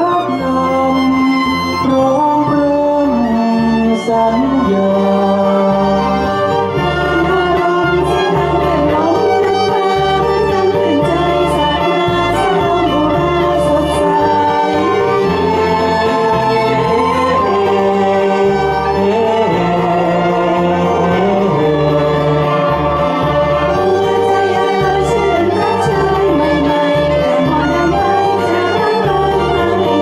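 A man and a woman singing a Thai song as a duet through handheld microphones, over instrumental accompaniment with a steady bass line and a violin playing along.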